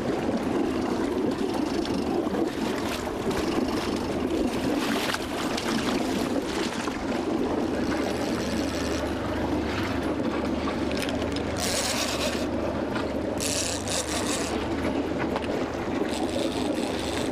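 Boat engine running steadily, with water washing against the hull; a few short bursts of hiss come in over the last six seconds.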